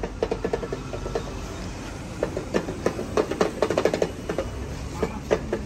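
Damaru, the small two-headed hand drum, rattled in quick runs of taps, several a second, in bursts that grow busier in the second half.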